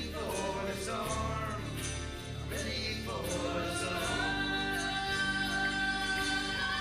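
Live song with singing over the band's accompaniment. The vocal line moves for the first few seconds, then settles into a long held note from about four seconds in.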